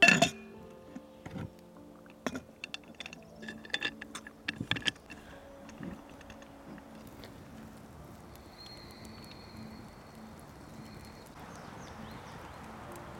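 A metal lid set down onto a cauldron-style pressure cooker with a ringing clang, followed by a run of light metallic clicks and clinks as the lid's clamp is fitted and screwed down. After about five seconds only faint, steady background noise remains.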